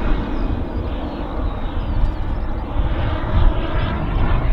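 Turbine engine of a scale BAE Hawk model jet running in flight, a steady rushing noise.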